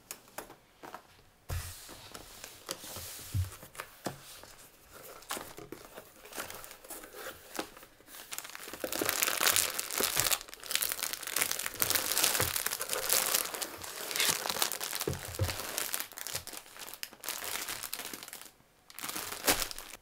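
Hands rummaging in a cardboard box, crinkling and rustling the packaging and fabric of a parcel, with small knocks. The rustling is busiest and loudest through the middle.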